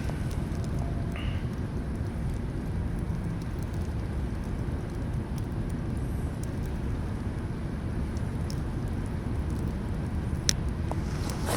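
Campfire crackling faintly, with one sharp snap about ten and a half seconds in, over a steady low rumble.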